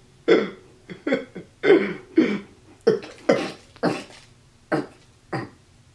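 A man laughing hard in short, loud bursts, about two a second, each falling in pitch.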